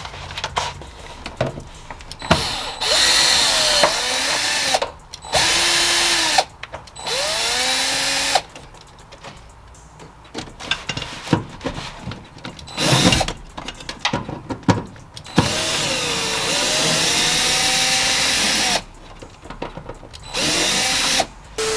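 Power drill running in about six bursts of one to three seconds, its motor pitch gliding up and down as it speeds up and slows, backing out two 7 mm fasteners from a car dashboard.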